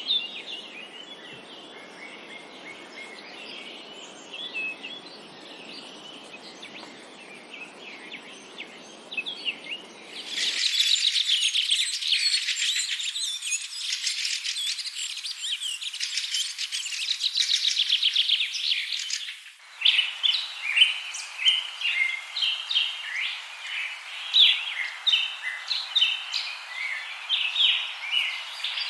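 Songbirds chirping and singing, in three spliced recordings that change abruptly about ten seconds in and again near twenty seconds. The first stretch is faint chirps over a low background hiss, the middle one a dense, fast trilling chorus, and the last one sharp, repeated chirps.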